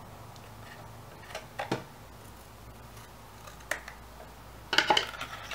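Scissors snipping a strip of white paper to a point: a few faint, separate snips, then a louder cluster of clicks near the end.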